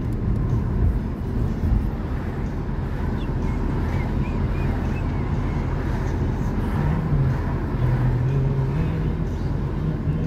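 Car interior noise while driving: the engine and tyres make a steady low rumble. A low engine tone rises slightly in pitch over the last few seconds.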